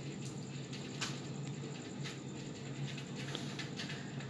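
Quiet room tone: a faint steady low hum with a few faint, short clicks.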